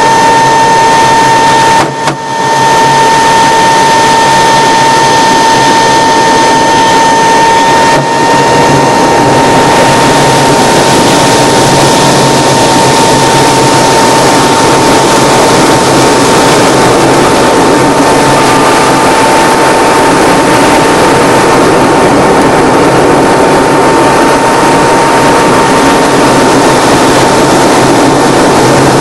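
Engine and propeller of a single-engine aerobatic plane in flight, heard from inside the cockpit: a loud, steady drone with a high, steady whine over it, briefly dipping about two seconds in.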